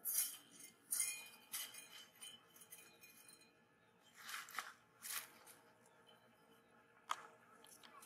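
Wire fan guard being handled and shifted on the ground, giving a string of brief light metallic clinks and scrapes, with a sharper click about seven seconds in.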